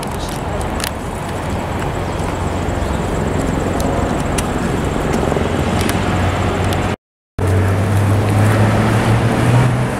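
Road traffic: a steady noise of passing vehicles with a low engine hum. The sound cuts out briefly about seven seconds in and comes back louder, the engine note rising slightly near the end as a vehicle goes by close.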